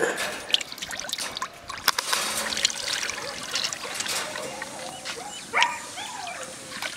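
Cooking oil being poured, a trickling, splashing pour of liquid with small crackling clicks.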